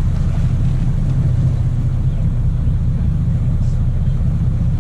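Sportfishing boat's engine running, a steady low rumble that holds at an even level throughout.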